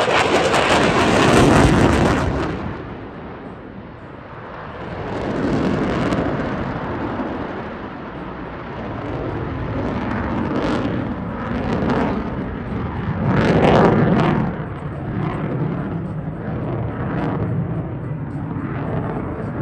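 Jet noise from an F-22 Raptor's twin afterburning turbofan engines as it flies its display: loud for the first couple of seconds, dropping away, then swelling again to a loudest pass about two-thirds of the way through.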